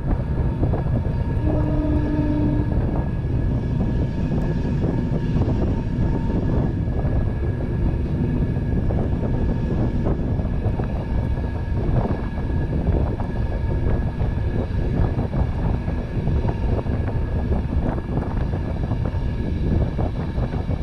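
Passenger train running steadily, heard from on board: a constant low rumble and rush of the moving carriage, with a short low tone about two seconds in.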